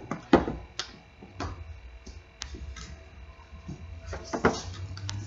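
Several scattered knocks and clicks over a steady low hum. The loudest comes about a third of a second in, and another strong one about four and a half seconds in.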